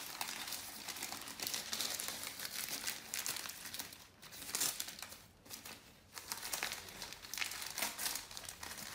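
Sheets of newspaper crumpling and rustling as they are unwrapped by hand, in uneven bursts with a couple of brief pauses.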